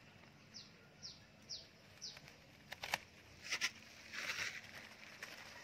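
A bird gives four short, high, falling chirps about half a second apart. A few sharp clicks and a short rustle follow, from scissors snipping napa cabbage stems and leaves.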